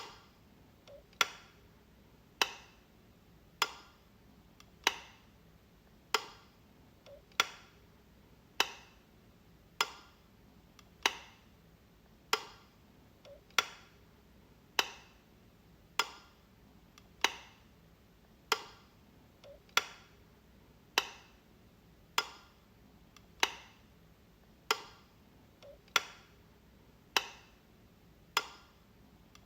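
Light switch clicking, flicked over and over at an even pace of about one sharp click every 1.2 seconds.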